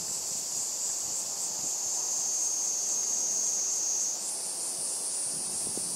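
A steady, shrill insect chorus. Its pitch dips slightly about two seconds in and jumps higher about four seconds in.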